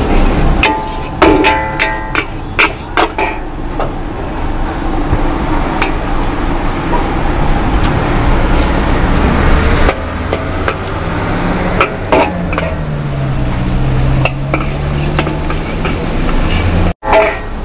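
Metal spatula scraping and clanging against a large iron wok as fried noodles are stir-fried, with sizzling beneath. The ringing strikes come thick in the first few seconds, then as sparser strokes.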